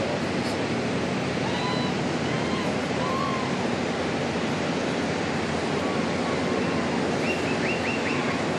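Steady rushing of wind and churning water, with faint high warbling calls or whistles coming through near the end.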